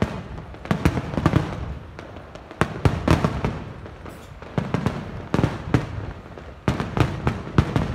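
Fireworks display going off: four clusters of bangs and crackles, one about every two seconds.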